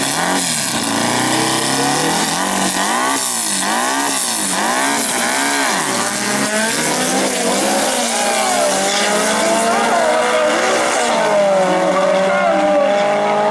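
Air-cooled VW Beetle drag-car engines revving up and down repeatedly on the start line. About six seconds in they launch, and the engine note climbs, drops back at each gear change and climbs again as the cars pull away down the strip.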